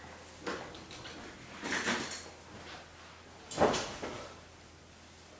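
A person moving about a bedroom and lying down on a bed: three brief scuffing, rustling sounds, the loudest about three and a half seconds in.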